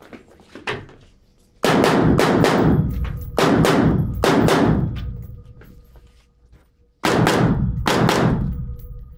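Rifle shots fired in quick strings, in three clusters about one and a half, three and a half and seven seconds in, each shot ringing out with a long echo off the walls of an indoor range.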